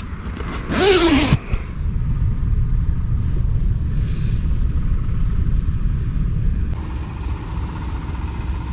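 Steady low rumble of wind buffeting the microphone. In the first second and a half it is overlaid by two drawn-out, voice-like calls that rise and fall in pitch.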